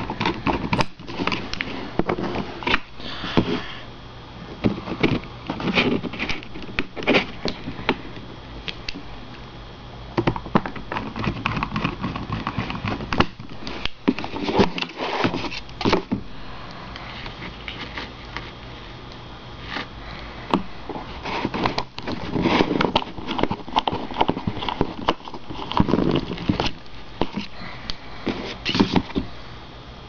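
Small screws being driven back into a laptop hard drive's metal caddy with a small Phillips screwdriver, with the drive and caddy handled on a table: irregular clicks, taps and scrapes.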